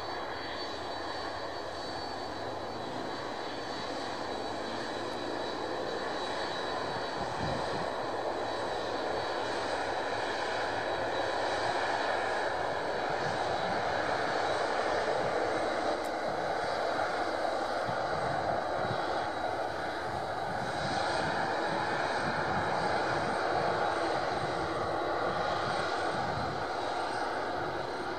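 Jet engines of a Boeing 767-300ER idling as the airliner taxis past, a steady engine noise that slowly grows louder. A thin high whine rides on it for the first few seconds.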